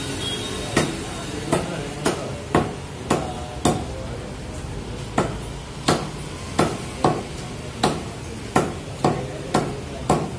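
Meat cleaver chopping chickens into pieces on a chopping block: about fifteen sharp chops, one or two a second, with a short pause near the middle.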